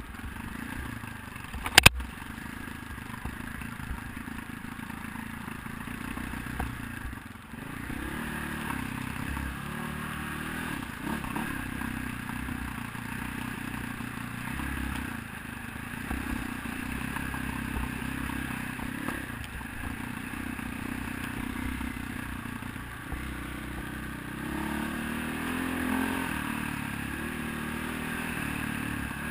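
Single-cylinder four-stroke dirt bike engine running under changing throttle, revs rising and falling as it is ridden along a rough trail. A sharp, loud knock about two seconds in.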